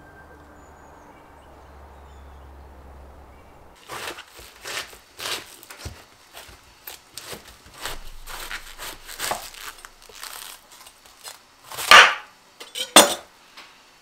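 A kitchen knife cutting through a raw head of white cabbage: a run of crisp crunching and cracking strokes, ending in two loud sharp cracks near the end. Before the crunching starts, about four seconds in, there is only faint steady background noise.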